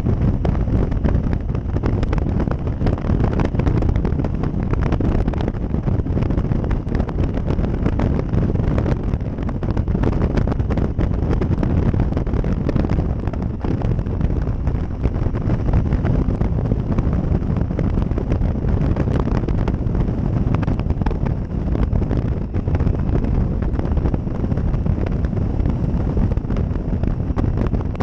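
Steady wind buffeting on the microphone of a Triumph Tiger 800 XCx motorcycle at road speed, with engine and road noise underneath.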